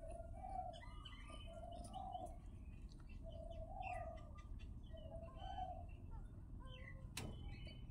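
A dove cooing over and over, one low call about every second and a half, with small birds chirping behind it and a single sharp click near the end.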